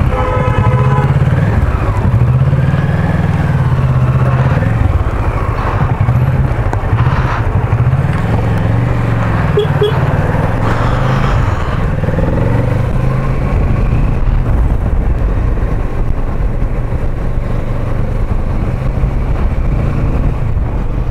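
Kawasaki Versys 650 parallel-twin motorcycle engine pulling away and riding on. Its pitch rises and drops several times in the first half as it accelerates through the gears, then settles into steady cruising with a rush of wind and road.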